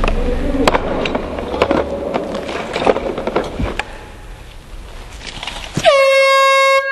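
Scattered clicks and knocks over a fading background, then near the end a loud horn blast of about a second, its pitch dipping at the start and then holding steady before it cuts off.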